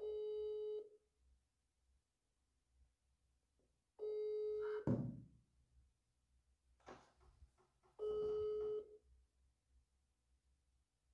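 A phone's ringback tone over the speakerphone: three long beeps about four seconds apart, the call ringing without being answered. A short thump follows just after the second beep.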